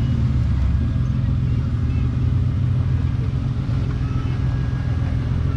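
Off-road 4x4 engine idling, a steady low rumble.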